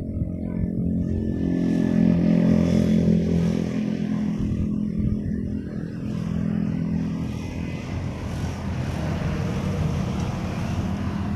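A motor engine running steadily, loudest about two seconds in and then holding at a fairly even level.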